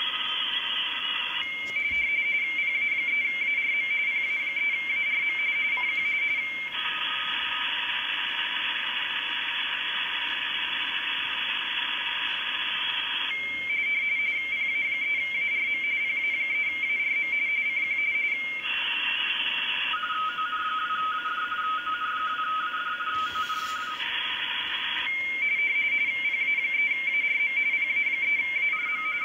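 RTTY signal through an Icom IC-7100 transceiver's speaker: a station calling CQ, a fast warble of two closely spaced tones keyed back and forth. Stretches of plain band hiss of a few seconds each come between the stretches of signal.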